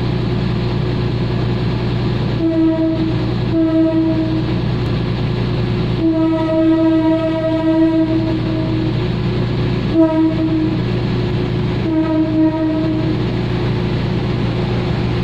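Train horn sounding five times, one blast about three seconds long near the middle and the others about a second each, over a steady low engine rumble.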